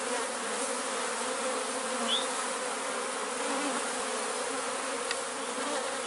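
Swarm of honeybees clustered on a tree branch, the many wings making a steady, dense buzz with a low hum running through it.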